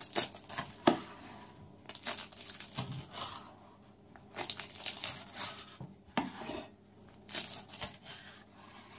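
A knife cutting through a crisp, flaky baked börek of rolled yufka pastry with leek filling: the layers crackle and crunch in irregular bursts.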